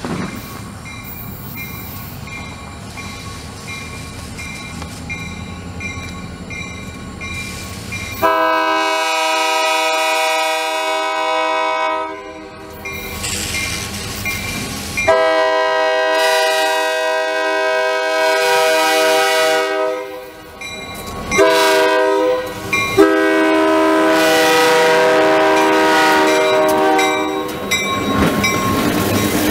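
Diesel freight locomotive's air horn sounding the grade-crossing signal as the train approaches: long, long, short, long. Before the horn there is a low rumble and a bell dinging steadily. Near the end the locomotives pass close with a rising rush of engine and wheel noise.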